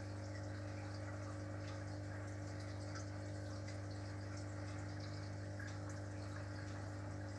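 Aquarium sump filtration and aeration running: a steady low pump hum under faint water trickling and bubbling.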